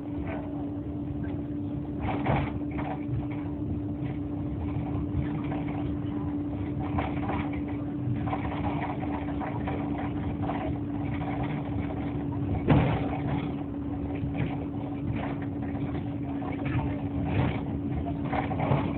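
Running noise inside a moving road vehicle: a steady engine drone over constant road rumble, with one louder knock about two-thirds of the way through.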